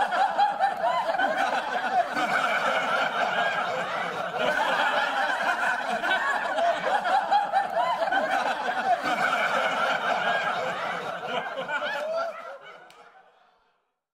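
Crowd of many people talking and laughing at once, a dense babble of overlapping voices that fades out about twelve seconds in.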